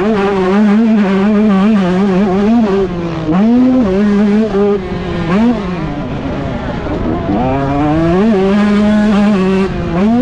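Husqvarna TC125's 125 cc single-cylinder two-stroke engine revving hard on the throttle. Its pitch wavers up and down without a break, dropping away and climbing again several times, longest around six to seven seconds in.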